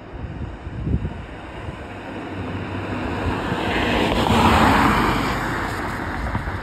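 A vehicle driving past close by, its road noise swelling to a peak about four to five seconds in and then fading, with wind gusting on the microphone.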